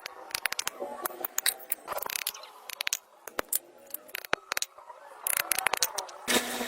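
Irregular sharp clicks and taps from hand work on parts or tools. Near the end, a louder, steadier noise starts.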